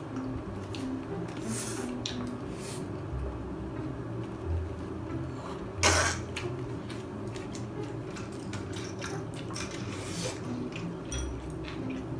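Eating at the table: scattered small clicks of chewing and of cutlery against plates, with one cough about halfway through.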